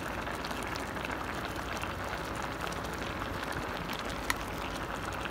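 Thick adobo sauce bubbling and crackling at a steady boil in an uncovered pot as it reduces. A spoon clinks once against the pot about four seconds in.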